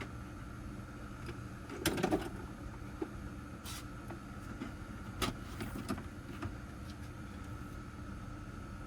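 Hand tools clattering and clinking as they are gathered up: a cluster of clanks about two seconds in, a short hiss near four seconds and a few more clicks around five to six seconds, over a steady background hum.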